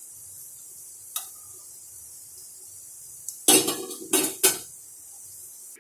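Metal kitchen utensils knocking against a kadhai and a serving dish as fried balls are lifted out of the oil: a light clink about a second in, then three loud clanks in quick succession, over a faint steady hiss.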